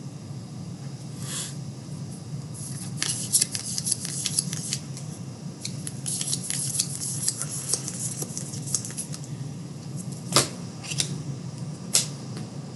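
Trading-card packs and cards being handled: a run of rapid crinkling and clicking for several seconds, then a few single sharp clicks, over a steady low hum.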